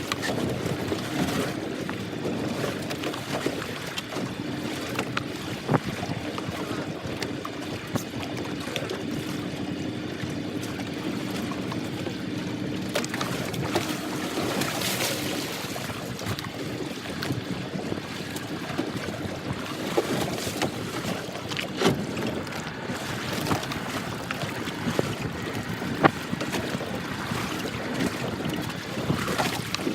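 Steady noise aboard a fishing boat at sea: a low engine hum under wind on the microphone and water washing against the hull, with a few sharp knocks now and then.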